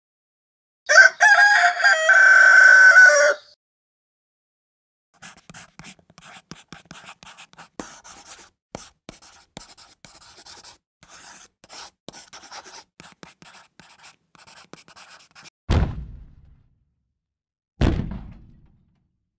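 A rooster crowing once, a single pitched call lasting about two and a half seconds. It is followed by a long run of faint rapid clicking and scratching, then two heavy thumps near the end.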